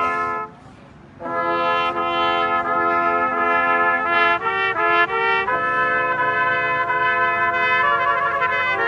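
Brass quintet of three trumpets and two trombones playing slow, held chords. The playing breaks off for a moment about half a second in and picks up again. Near the middle comes a run of shorter notes before the chords are held again.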